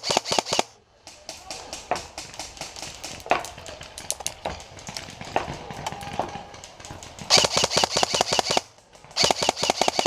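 Airsoft electric rifle (AEG) firing rapid full-auto bursts close by: one burst at the very start, then two more about seven and nine seconds in. Fainter scattered shots sound in between.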